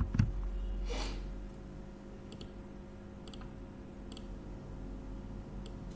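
Computer mouse clicks, single short clicks about a second apart, over a low steady hum, with a brief soft hiss about a second in.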